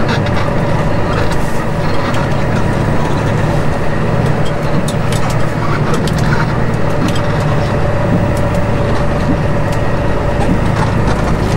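Kenworth T880's 450 hp Cummins diesel engine running steadily under way.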